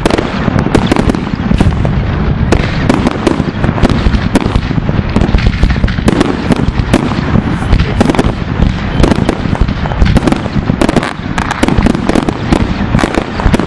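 A dense barrage of fireworks: many loud, overlapping bangs and crackles, several a second without a break, from rockets bursting in the air.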